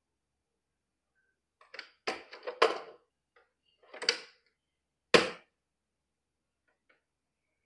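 Knocks and clicks from a countertop coffee machine being handled: a glass cup set down on its drip tray, then the top lid lifted and snapped shut. A cluster of clatters comes about two seconds in, another knock comes about four seconds in, and a sharp click follows about five seconds in.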